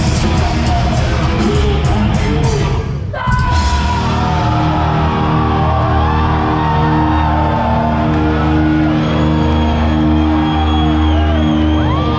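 Live heavy metal band playing loud, with drums and cymbals crashing for the first few seconds. The band drops out briefly about three seconds in, then comes back with held distorted guitar chords and a bending lead guitar line. Audience members yell along.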